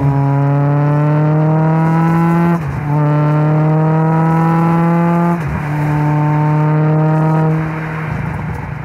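Millington Diamond 2.7 four-cylinder twin-cam engine in an MST Mk2 Escort pulling hard, its revs climbing in each gear. There are two quick upshifts through the sequential gearbox, about two and a half and five and a half seconds in. Near the end it eases off and fades.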